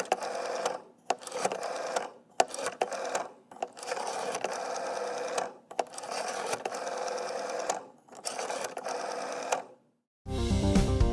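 Rotary telephone dial being pulled round and let go again and again. Each spring return is a whirring buzz lasting from half a second to about two seconds, with sharp clicks in the short gaps between. Music starts near the end.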